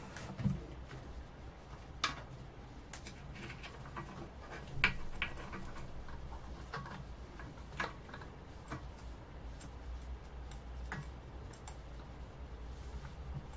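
Irregular small clicks and taps of plastic and metal parts being handled and fitted inside a small piston air compressor's cylinder during reassembly, with a few sharper knocks, the loudest about five seconds in.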